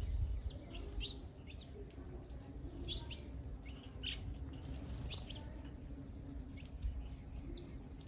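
Sparrows chirping in short, scattered chirps while they feed on the ground, over a low rumble.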